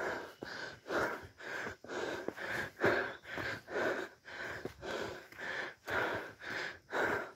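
A runner's hard, rhythmic panting, about two breaths a second, picked up close by a chest-mounted phone: he is out of breath from running uphill.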